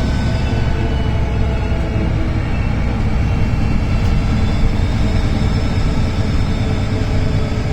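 VDL DB250 double-decker bus engine running with a steady low rumble, its turbocharger whistling faintly above it as high thin tones that drift a little in pitch.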